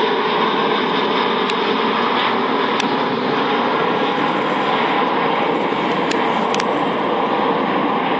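Airbus A380's four jet engines at takeoff thrust, a loud, steady, dense rumble, with a few faint sharp ticks over it.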